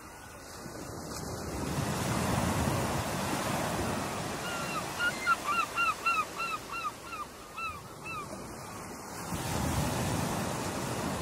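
Ocean surf breaking in a steady wash that swells twice. About four and a half seconds in, a bird gives a run of about a dozen short calls, each dropping in pitch, roughly three a second.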